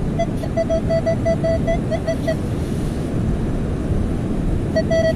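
Garrett pinpointer beeping in rapid pulses of one steady tone, about six a second, stopping after about two seconds and starting again near the end; the fast beeping means the probe is right on the metal target in the clump of dug sand. Steady wind and surf rumble underneath.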